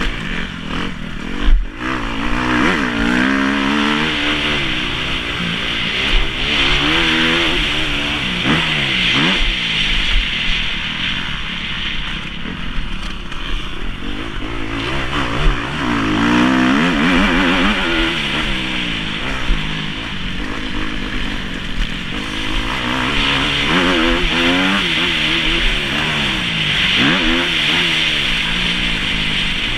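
Kawasaki KX250F's single-cylinder four-stroke engine, heard onboard, revving up and falling back over and over as the bike is ridden around a motocross track. There is one sharp knock about a second and a half in.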